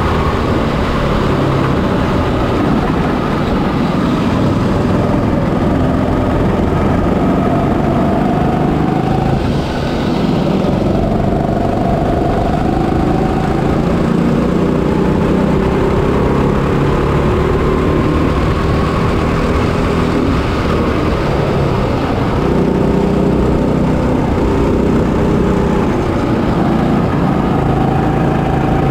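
Single-cylinder four-stroke Honda GX200 engine of a kart running under load, heard close up from on board. Its pitch rises and falls as the kart speeds up on the straights and slows for the corners.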